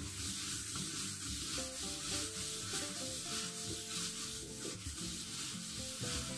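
A bare hand rubbing and sweeping back and forth across a smooth countertop, a steady dry rubbing hiss, with soft background music underneath.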